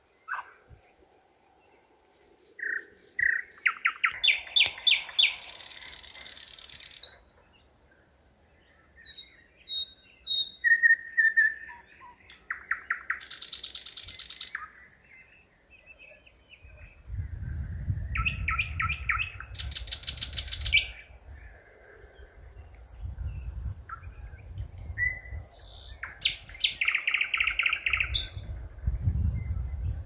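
Nightingale singing in separate phrases of rapid repeated notes, fast trills and harsh rattles, with short pauses between them. A low rumble joins in from about halfway through.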